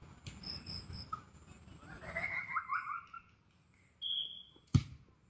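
A football kicked hard on a grass pitch: one sharp thud about three-quarters of the way through, the loudest sound here. It comes just after a short, steady high whistle-like tone.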